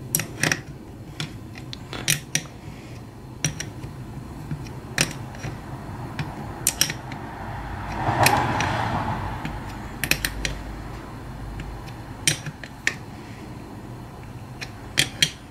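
Adjustable wrench working a brass fitting on an H6 SU carburettor as it is tightened down: scattered small metal clicks and clinks, with a brief rubbing sound about eight seconds in.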